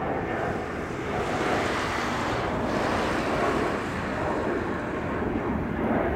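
Airbus A320 airliner's jet engines at climb power just after takeoff, a steady rushing noise with no distinct tones.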